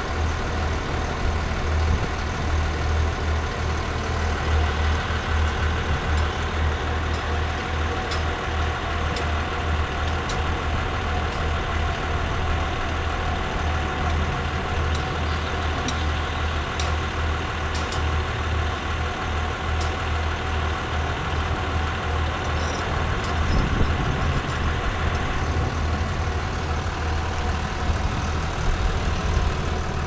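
Engine of a tracked soil-nail drill rig running steadily with a strong low hum, with a few faint ticks over it.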